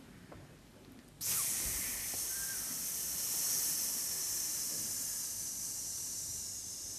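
A steady, high hiss starts abruptly about a second in and keeps going, easing off slightly near the end.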